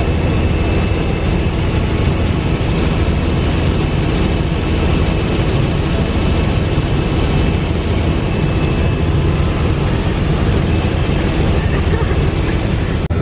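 Helicopter cabin noise in flight: a steady loud drone from the engine and rotor, with a few constant thin whines above it. It drops out for an instant near the end.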